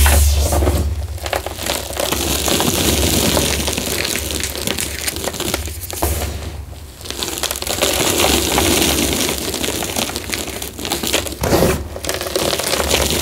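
Hands crushing and crumbling soft, powdery reformed gym chalk, a continuous gritty crunching with fine crackles as handfuls are squeezed and sifted back onto the pile. A low rumble runs underneath, and the crunching eases off briefly around the middle.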